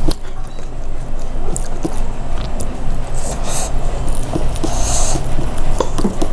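Close-miked eating of khichdi: chewing and small wet mouth clicks, with a few short hissy breaths, over a steady low hum.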